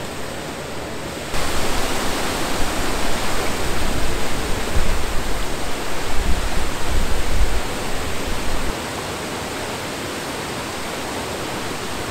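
Water rushing over a river weir and through its sluice gates: a steady wash of noise. It grows louder about a second in, with a deep rumble underneath that drops away about nine seconds in.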